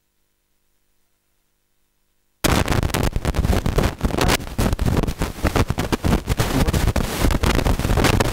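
Near silence, then about two and a half seconds in a loud crackling, rumbling noise starts abruptly and keeps going: rustle and rubbing noise on a clip-on microphone.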